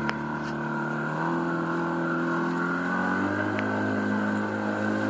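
Small tiller-steered outboard motor opened up to pull a water skier out of the water, its note stepping up in pitch twice as the boat takes the load and gathers speed.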